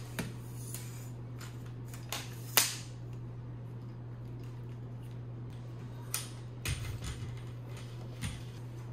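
Camera tripod being unfolded and its legs extended: about half a dozen sharp clicks and knocks from the leg joints and locks, the loudest about two and a half seconds in, over a steady low hum.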